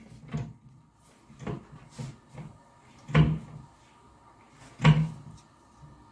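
A few light knocks, then two louder clunks about three and five seconds in: a solid oak toilet seat's hinges and bolts being set down through the holes onto the ceramic toilet pan.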